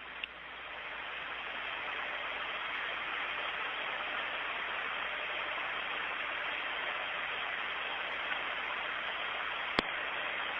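Steady hiss of static on the Soyuz air-to-ground radio channel, swelling over the first couple of seconds, with one sharp click near the end.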